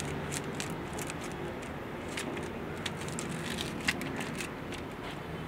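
Light metallic clinks and rattles of the steel rods of a bundle of magnetic pickup tools being handled and coiled together, with a sharper click about four seconds in.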